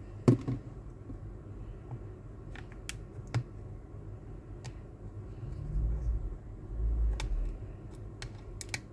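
Thin metal pry blade working into the seam between a tablet's back cover and frame, making scattered small clicks and ticks, the sharpest just after the start. Two low dull rumbles of handling noise come around six and seven seconds in.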